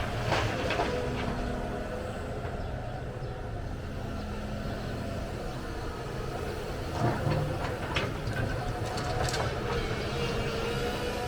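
Excavator's diesel engine running steadily, with a faint steady whine over it and a few sharp clanks and knocks, once near the start and several more in the second half.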